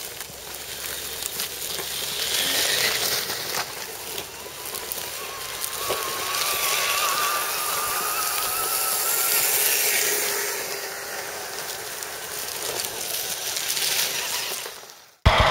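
Scale RC crawler trucks driving over dry leaf litter: a steady crackle and crunch of leaves under the tyres, with a faint wavering whine in the middle. The sound cuts off abruptly near the end.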